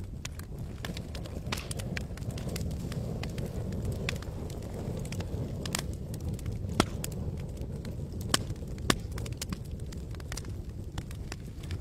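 Campfire burning: a steady low rumble under frequent crackles and sharp pops from the burning wood, with three louder pops in the second half.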